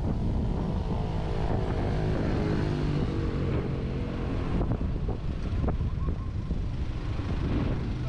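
Wind rumbling on the microphone, mixed with a motor vehicle's engine running close by; the engine's hum falls slowly in pitch over the first few seconds.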